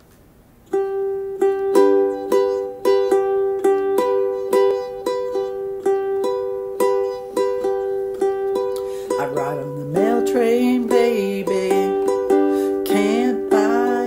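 A plucked string instrument picking a steady, repeating tune in G, starting about a second in. From about nine seconds a woman's voice joins in singing.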